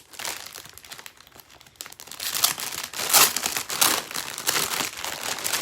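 Plastic clothing packaging crinkling and rustling as it is handled and opened to get at a garment, loudest in the middle stretch.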